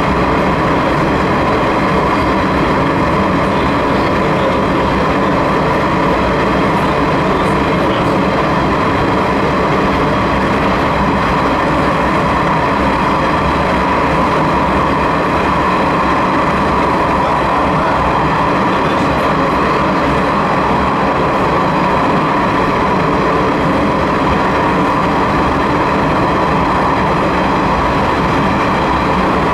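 Sanriku Railway 36-100 series diesel railcar running at speed through a tunnel. It makes a loud, steady rumble with a constant mid-pitched drone throughout.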